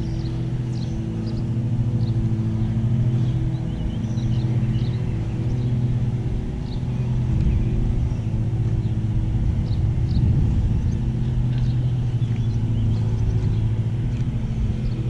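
An engine running steadily nearby, a low hum that holds one pitch throughout, with faint bird chirps above it.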